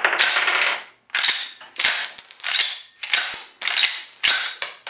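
Desert Eagle pistol's slide and action being worked by hand: a run of sharp metallic clacks, about one every half second, as the chambered .50 AE round is cycled out.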